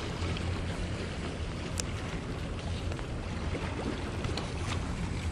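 Small waves washing steadily against the rocks of a sea jetty, with a few faint clicks.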